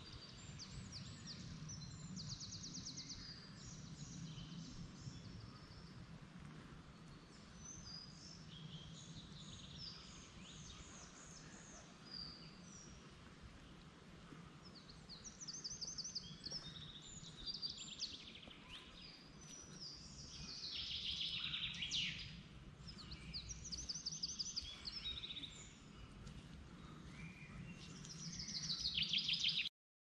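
Several songbirds singing and calling, with repeated rapid trills, over a low steady background rumble; the calls grow busier and louder toward the end, and the sound cuts off suddenly just before the end.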